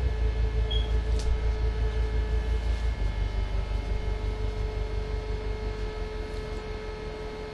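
Low throbbing rumble, pulsing about four times a second, with a steady hum above it, slowly fading out.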